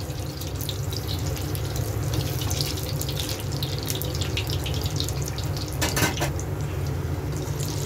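Battered bread pakoras deep-frying in hot oil in a kadai on their first fry: steady sizzling with fine crackling, over a steady low hum. A brief knock about six seconds in.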